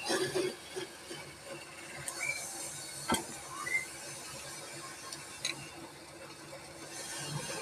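Wood lathe running with no tool cutting, a faint steady motor hum. A short scrape at the very start, and a few sharp clicks and taps from the tool or the work, the loudest about three seconds in.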